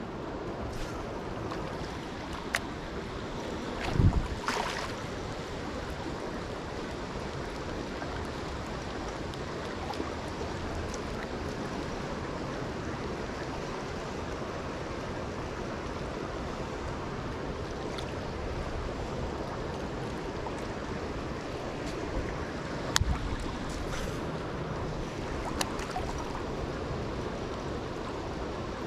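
Steady rushing of a trout stream's flowing water, with a few short knocks, the loudest about four seconds in and another near twenty-three seconds.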